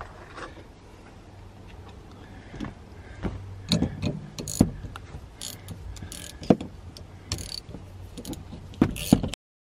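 Wrench clicking and clanking on a rear shock's top mount nut as it is turned, in a run of irregular metal clicks and knocks that starts a few seconds in. The sound cuts off suddenly near the end.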